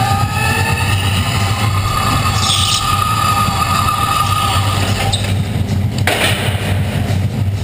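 Go-karts racing, heard from on board: a steady motor drone whose pitch drifts up and down as the karts accelerate and slow through the corners.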